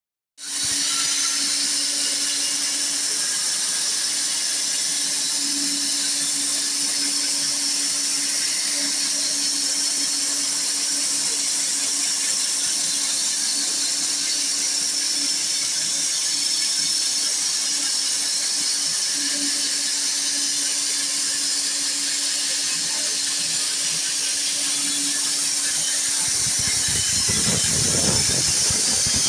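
Wood-Mizer LX250 band sawmill running: a steady high-pitched whine over a steady hum from the running saw head. About three seconds before the end a louder, lower rumble comes in and builds.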